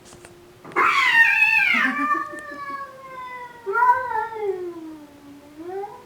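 A cat's long, drawn-out yowl played back from a video on a computer. It starts harsh and loud about a second in, then wavers, falling and rising in pitch.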